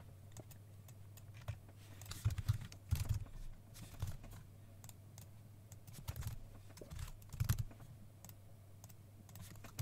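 Typing on a computer keyboard in short irregular bursts of key clicks, over a faint steady low hum.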